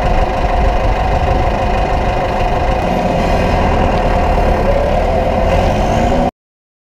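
Tractor engine running steadily, working hay equipment in the field; the sound cuts off abruptly about six seconds in.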